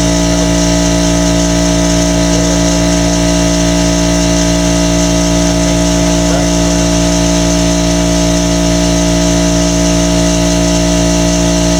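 An engine or motor running steadily with a regular low pulse, cutting off abruptly right at the end.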